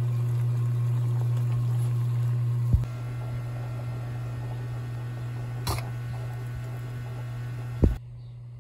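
Steady low electrical hum, loud for the first few seconds, then dropping to a quieter hum after a sharp click about three seconds in; two more short clicks come later.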